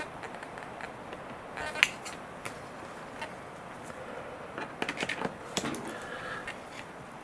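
Small screws of an IDS servo-mount kit being turned in with a hand screwdriver: scattered small clicks and creaks, one sharp click about two seconds in and a quick run of clicks a little past halfway.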